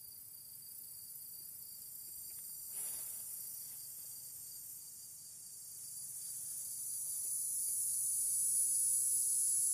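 Steady high-pitched insect chorus that swells louder over the last few seconds, with one brief rustle about three seconds in.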